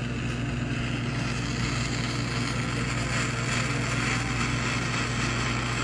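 Steady rushing hiss of a heating tool warming a 2001 Honda CR125's aluminium crankcase half to free its bearings, growing louder about halfway through, over a constant low mechanical hum.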